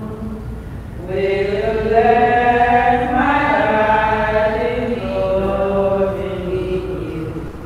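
Voices chanting a hymn in unison, singing long held notes that glide slowly from one to the next. A new phrase begins about a second in. It is the opening chant of the Mass, sung while the priest reverences the altar.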